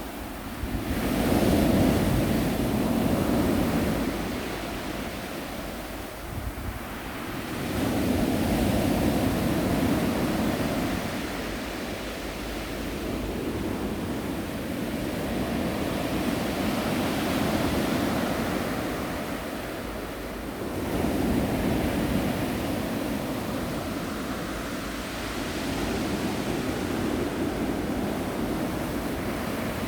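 Ocean surf: waves breaking and washing in, the rush of water swelling and falling back every few seconds.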